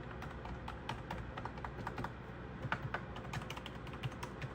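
Typing on a retro typewriter-style wireless keyboard with round keys: a quick, irregular run of key clicks, a few of them louder near the middle.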